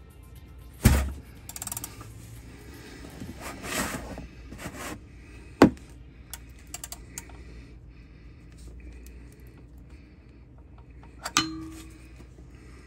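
Ratchet and bolt-extractor socket working a rounded oil drain plug loose, the socket's grooves biting into the stripped plug. Three sharp knocks about five seconds apart, with scraping and light clicks between them; the last knock rings briefly.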